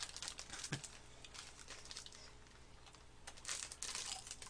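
Plastic snack wrappers crinkling as they are handled and opened, in two spells of quick crackly clicks: one in the first second and one a little past the middle.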